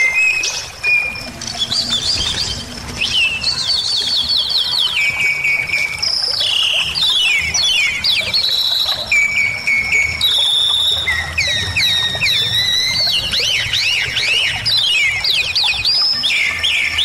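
Bali myna singing vigorously, a varied song of high whistled notes, held tones and fast trills of quick down-slurred notes, mixed with mimicked phrases, with hardly a pause. This is the loud, chatty 'gacor' song used as a tutor and trigger recording for kept songbirds.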